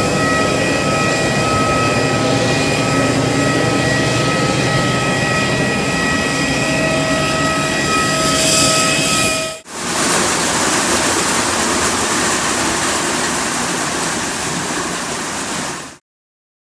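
Jet aircraft whine on an airport apron: a loud, steady sound of several held high tones over a low rumble. About ten seconds in it dips and turns into an even rushing noise without the tones, which cuts off suddenly near the end.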